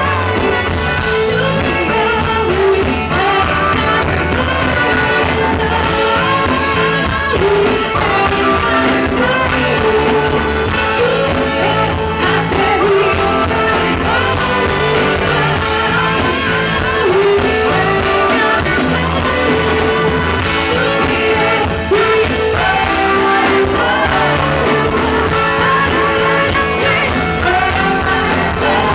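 Live funk band playing loud and steady: women singing over electric guitars, bass, keyboards and drums, recorded from the audience.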